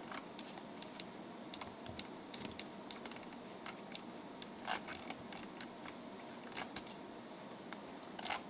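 Scattered, irregular clicks and taps of a computer mouse and keyboard, fairly faint, over a steady microphone hiss, with a couple of louder clicks about midway and near the end.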